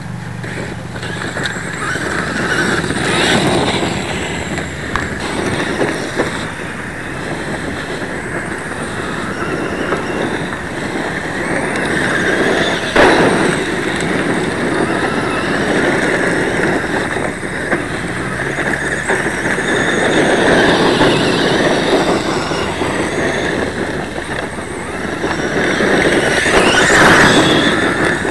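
Traxxas E-Maxx electric RC monster truck driving over gravel: the motor whines and the tyres crunch on loose stones, swelling and fading several times as the truck speeds up and turns.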